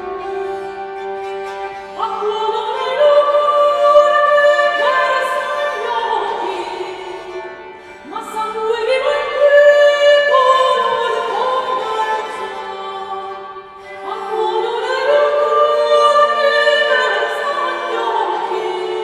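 Early-music ensemble: a woman's voice singing a slow melody over sustained notes from a portative organ and a newly reconstructed bowed bass instrument (viola d'arco) played upright. The music goes in three phrases, starting about two, eight and fourteen seconds in.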